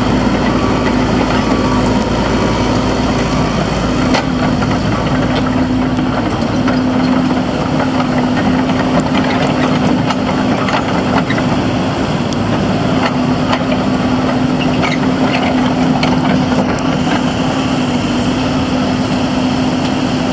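2012 John Deere 120D excavator's diesel engine running, a steady, constant drone.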